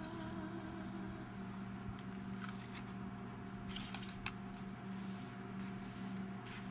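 Steady low hum of room tone, with a few faint rustles and ticks between about two and four and a half seconds in as a pad of paper guest checks is leafed through by hand.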